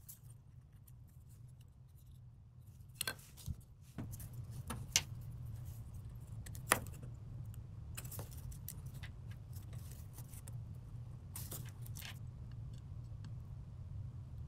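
Faint, scattered small clicks and ticks of component wire leads and a circuit board being handled as through-hole parts are pushed in and their leads bent. A low steady hum comes in about four seconds in.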